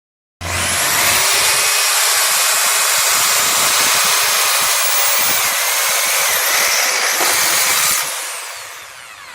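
Electric drill switched on, running at full speed with a steady high whine for about seven seconds, then released and winding down near the end.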